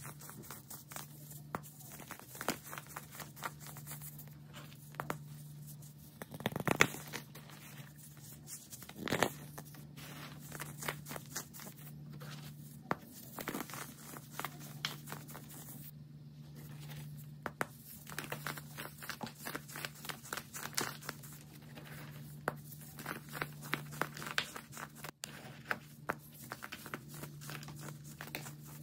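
Hands crushing and squeezing molded baking soda star shapes and loose baking soda powder: a dense run of dry crunches and crackles, loudest about seven and nine seconds in, over a faint steady low hum.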